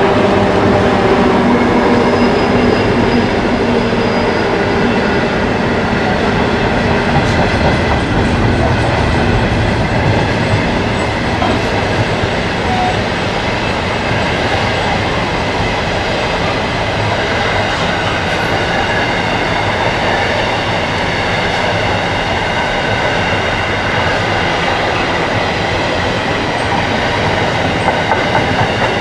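Clyde/EMD diesel locomotives of a grain train running past, their engine note plain for the first few seconds and then fading, followed by a long string of grain hopper wagons rolling by with steady wheel clatter and a thin high squeal of wheels on the curve.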